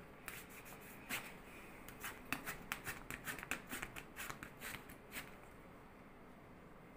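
Hand rubbing a waxing strip briskly over hot wax on a forearm: a quick irregular run of short rustling scrapes that stops about five seconds in.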